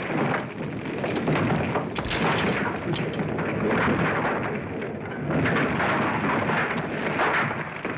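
Film sound effects of a violent attack: a dense, continuous crashing and rumbling as a plaster-and-stone wall breaks apart. A few sharp reports like gunshots stand out in the din.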